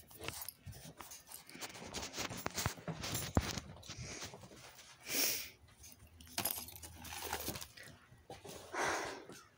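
Handling noise of a phone being moved about: rustling with scattered clicks and taps, and a couple of short hissy rushes about five seconds and nine seconds in.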